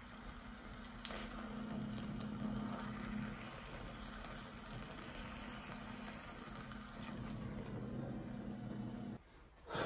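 Gas welding torch flame hissing steadily against a steel shaft, the torch fitted with a number 10 tip that is too big to bring the steel to red heat. The hiss cuts off suddenly about nine seconds in, and a single sharp knock follows near the end.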